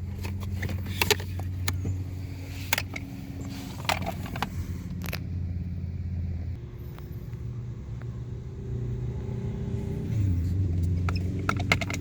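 A steady low engine hum, like a vehicle idling, that shifts pitch slightly partway through, with a few sharp clicks and knocks in the first half from the blower motor assembly being handled.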